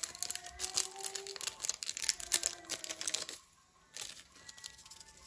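Thin plastic seasoning sachet crinkling as it is squeezed and shaken over instant noodles in a plastic colander, a fast run of crackles that stops a little over three seconds in.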